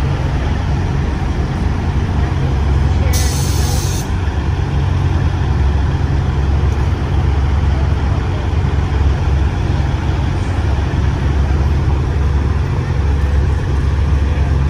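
Semi truck's diesel engine rumbling steadily as the tractor rolls slowly across the lot, with a short hiss of air from its air brakes about three seconds in.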